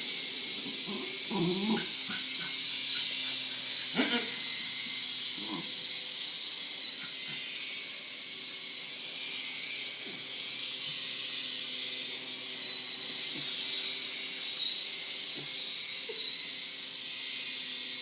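A small electric motor whining steadily at a high pitch over a hiss, its pitch wavering slightly now and then.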